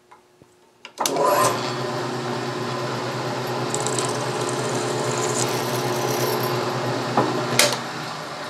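Small mill used as a drill press, its motor starting about a second in and running steadily while the drill bit cuts through a small sheet-metal disc held in a vise. There is one sharp click near the end.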